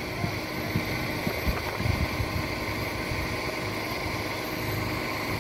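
Concrete pump truck's diesel engine running steadily, a low rumble.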